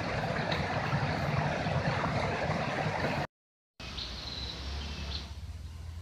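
Shallow forest stream rushing over rocks, a dense steady water noise that cuts off abruptly about three seconds in. After a brief silence comes a quieter outdoor background with a low hum and a few high-pitched chirps.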